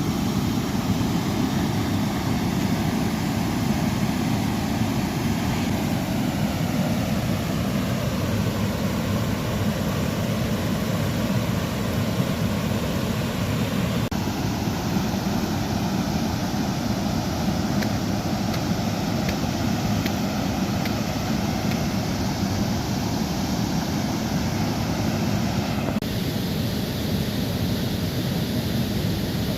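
Steady rushing of river water at a waterfall, an even noise without distinct events, its character changing abruptly twice.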